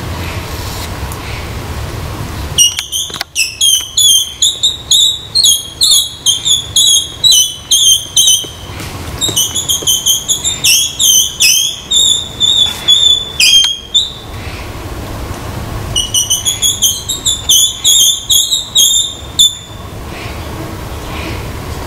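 A rapid series of loud, high-pitched chirping calls, about three a second, in two runs: a long one starting a few seconds in and a shorter one near the end.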